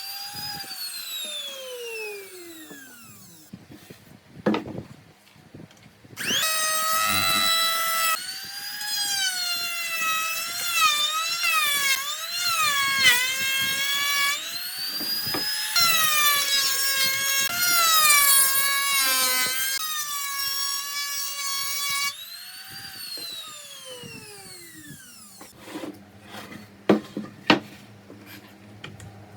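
Electric power tool's motor whining as it works wood. At the start it winds down, then it runs loudly with its pitch dipping and wavering under the load of the cut, spins up and winds down once more, and a few sharp knocks come near the end.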